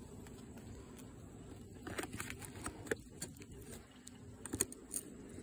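Metal hive tool clicking and knocking against the wooden top bars of beehive frames: a handful of light, scattered clicks, the strongest about four and a half seconds in.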